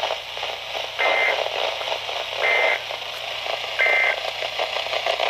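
Three short Emergency Alert System end-of-message data bursts, the warbling digital SAME tones, about a second and a half apart, over steady radio static. They mark the end of the alert.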